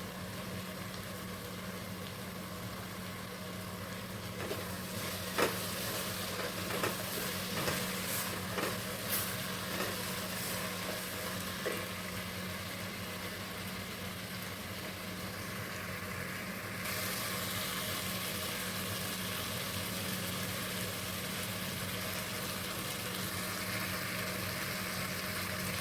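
Chopped carrots, yam, onion and tomato sizzling as they fry in oil in a pan, with a spatula knocking and scraping against the pan now and then in the first half. The sizzle grows louder a little past halfway, over a steady low hum.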